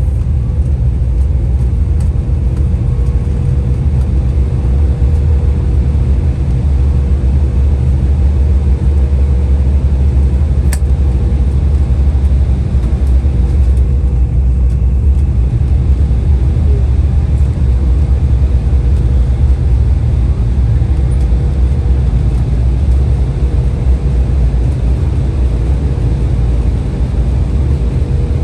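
Steady low rumble of engine and airflow noise inside an Embraer 175 airliner cabin, heard from a forward window seat, with a faint steady hum over it and one light click partway through.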